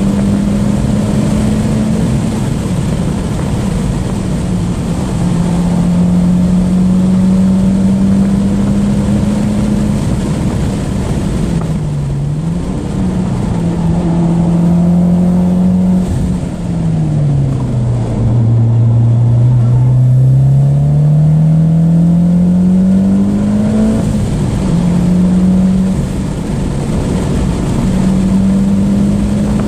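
Mitsubishi Lancer Evolution X's turbocharged 2.0-litre four-cylinder heard from inside the cabin at track speed, over tyre and wind noise. The engine note holds steady, drops twice in the middle as the car slows for corners, then climbs for several seconds as it accelerates hard.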